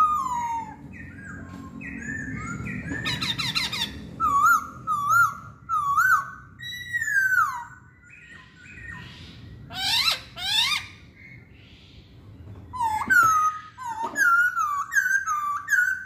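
Masked laughingthrush (poksay Hongkong) singing: loud, clear whistled notes that slide up and down, repeated in short phrases with brief pauses between them.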